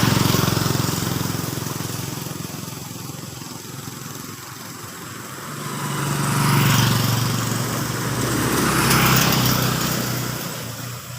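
Motor vehicles passing on a road, engine noise swelling and fading three times: once at the start, then twice more near the middle and later on.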